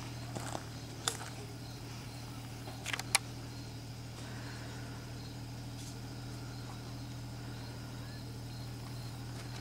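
Off-road SUV engine idling steadily, with a few sharp knocks about a second in and again around three seconds in. Faint insect chirping repeats evenly in the background.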